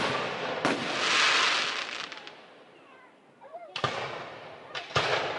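Aerial firework shells bursting: a sharp bang about half a second in, followed by a dense crackling hiss that fades over about a second and a half, then three more bangs close together in the last second and a half.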